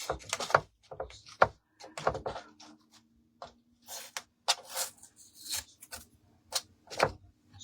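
Painter's tape being peeled off a painted wooden door hanger around freshly drilled holes: a string of short tearing and rustling bursts mixed with light knocks from handling the wood.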